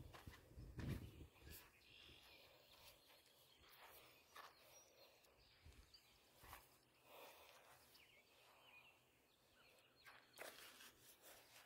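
Near silence: faint outdoor background with a few soft knocks and rustles, the loudest of them about a second in.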